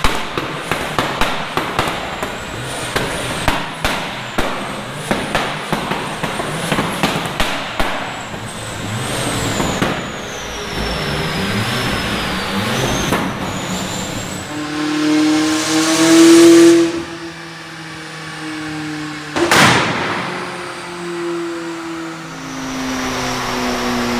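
Mitsubishi Lancer Evolution VII's turbocharged four-cylinder under load on the dyno, with a rapid crackle of exhaust pops and bangs. Just past halfway a McLaren 600LT's twin-turbo V8 takes over, revving hard to a loud peak with one sharp bang, then its note falls away.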